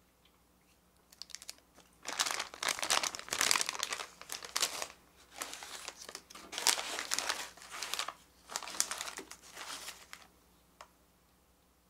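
Thin plastic candy wrapper crinkling in bursts as a twist-wrapped orange ramune candy is handled and unwrapped, starting about two seconds in and dying away near the end, with one small click afterwards.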